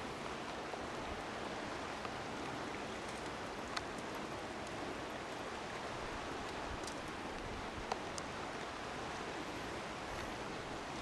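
Steady, even outdoor background hiss, with a few faint clicks about four and eight seconds in.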